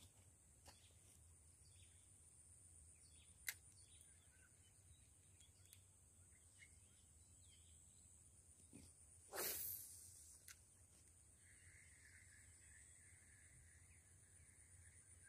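Near silence: faint outdoor ambience with a steady high hiss, a few soft clicks, and one brief swish about nine seconds in. A second faint, steady, higher sound joins from about eleven seconds.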